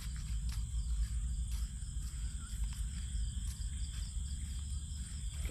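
Crickets trilling steadily in the dark over a constant low rumble on the microphone.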